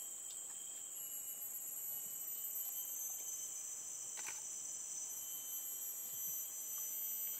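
Rainforest insect chorus: a steady, high-pitched buzz of several overlapping tones held without a break, with one short click about four seconds in.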